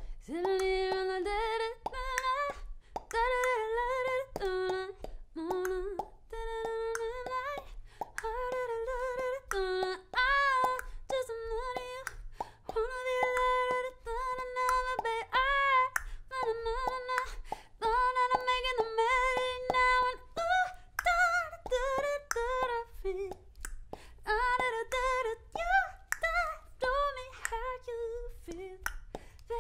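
A woman singing an improvised wordless melody solo, with held notes linked by short slides, and sharp clicks keeping a beat under it.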